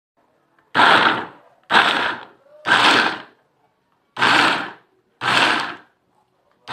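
Capsule Cutter Quatre electric mini food processor run in short pulses, its blades chopping food in the glass bowl. There are five bursts about a second apart, each starting sharply and fading within a second, with a slightly longer pause before the fourth.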